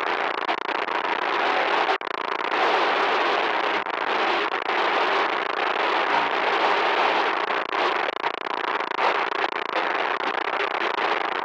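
Loud, harsh electronic static: a dense crackling hiss with a few brief dropouts.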